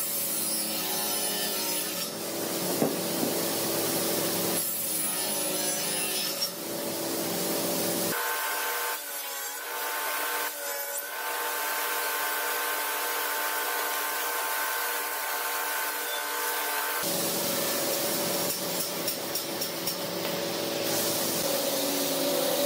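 Table saw running, its low-set blade cutting grooves into the edges of a pale laminated wood frame: a steady motor and blade whine over the hiss of the cut. The tone changes abruptly twice, about a third and three quarters of the way through.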